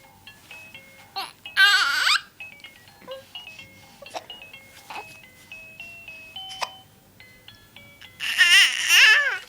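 A baby boy's two loud, high, wavering squeals, one about a second and a half in and one near the end, over a simple electronic melody of beep-like notes. A few short sharp catches between them are the baby's hiccups.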